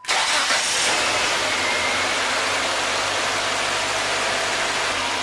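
Nissan twin-cam 16-valve four-cylinder engine idling steadily with an even hiss, heard close in the open engine bay. It is warming up from cold so the thermostat opens and air can bleed out of the cooling system.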